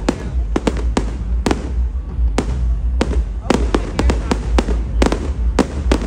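Aerial fireworks show: many sharp bangs and cracks of shells bursting, several a second at irregular spacing, over a continuous deep rumble.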